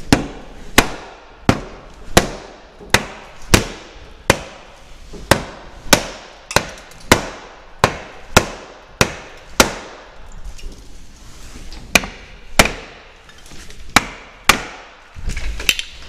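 Hammer blows on a door frame that sags and rubs the door, knocking it back into line: a steady run of sharp strikes about one and a half a second, a pause of about two seconds, then five more.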